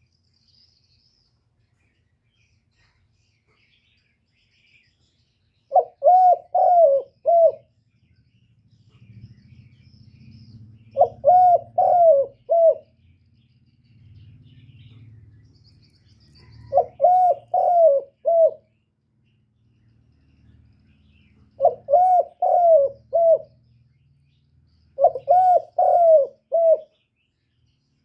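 Spotted dove cooing: five phrases of four notes each, a few seconds apart, the first about six seconds in.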